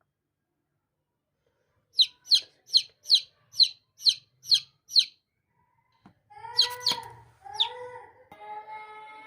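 Baby chicks peeping: a run of eight short, high peeps, about two and a half a second. After a short pause come three lower, drawn-out calls with a clear pitch, the last running on near the end.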